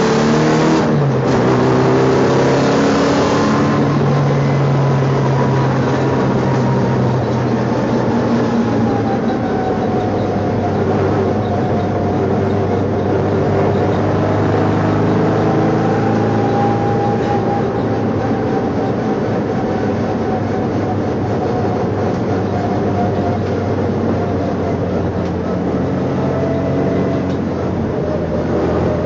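Race car engine running hard, heard from inside the stripped, roll-caged cabin, its pitch rising and falling with the throttle over steady road and wind noise.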